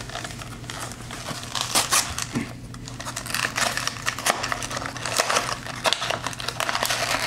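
Blind-box toy packaging being opened by hand: irregular crinkling, rustling and tearing of cardboard and wrapping, with a few sharper clicks.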